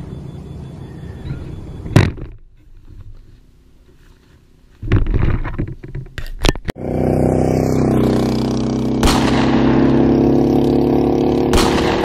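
Nylon rain poncho rustling and scraping against the camera as it is pulled on, with a few sharp knocks. From about seven seconds in, a loud steady drone takes over.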